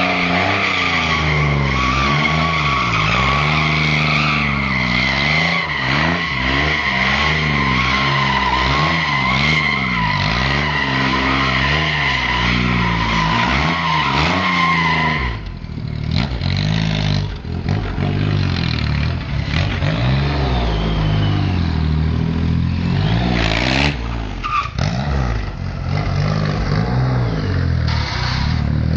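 Triumph Rocket III's three-cylinder engine revved up and down over and over while the rear tyre spins in a burnout, a steady tyre squeal over it. About halfway through, the squeal stops and the engine keeps rising and falling, with a few short squeals later on.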